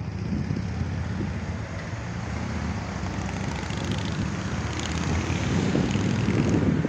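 Road traffic going by on a city street, with wind buffeting the microphone; the low rumble swells near the end.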